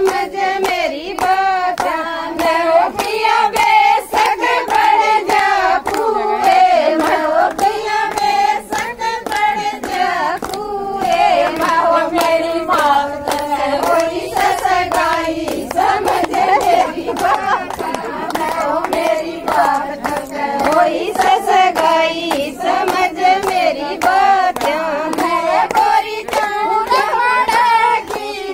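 A group of women singing a Haryanvi folk song together without instruments, to steady rhythmic hand clapping.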